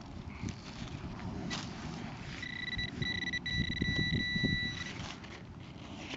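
Hand digger scraping and chopping into leaf litter and soil. Partway through, a metal detector sounds a steady high electronic tone for about two seconds, broken briefly twice, signalling a buried metal target.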